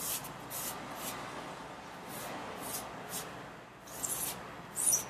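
Fingers rubbing and pressing a freshly glued paper print flat onto a cardboard frame: a series of short swishes, the loudest two near the end.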